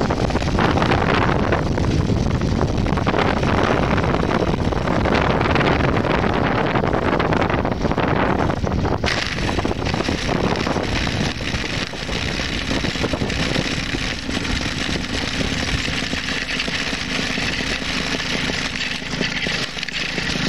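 Ultralight's 16 hp paramotor engine running with heavy wind rush on the microphone as the plane comes in low to land. About nine seconds in the wind noise drops off suddenly, leaving the engine idling steadily as the plane rolls on the grass after touchdown.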